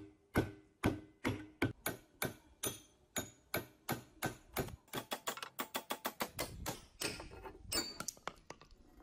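Hammer blows on a steel rod set in the eye of a rusty axe head held in a bench vise, driving out the old wooden handle stub. The strikes are steady at about two a second, come faster, three to four a second, from about five seconds in, and stop shortly before the end.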